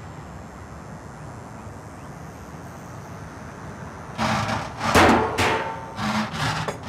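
A steady low background rumble. From about four seconds in comes a run of sharp knocks and clattering bangs, several in quick succession.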